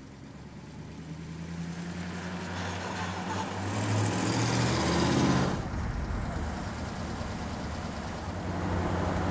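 1949 Kurtis Sports Car's Edelbrock-built Ford flathead V8 running as the car drives past. It grows louder over the first few seconds, is loudest about four to five seconds in as it passes, then settles as it pulls away.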